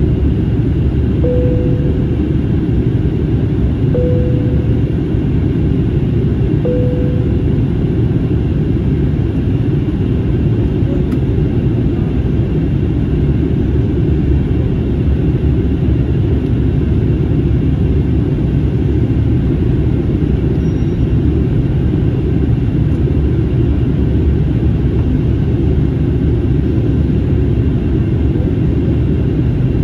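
Airbus A321neo cabin noise on approach: a steady, loud rumble of engines and airflow. During the first eight seconds a short clear tone sounds three times, roughly every three seconds.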